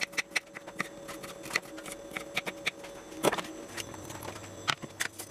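Kitchen knife chopping garlic cloves on a wooden cutting board, with irregular sharp taps and a louder knock about three seconds in. Near the end the chopped garlic is tipped off the board into a frying pan.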